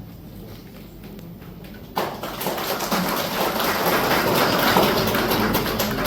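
Audience applauding, breaking out suddenly about two seconds in and growing louder.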